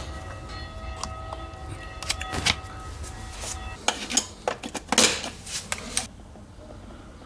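A run of sharp clicks and clinks of hard objects being handled, thickest between about four and six seconds in, then stopping.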